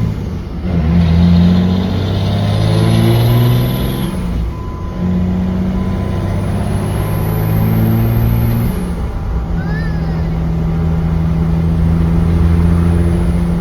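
Pickup truck engine pulling through the gears under way. The engine note steps down at shifts about half a second, four and a half and nine seconds in, and climbs between them.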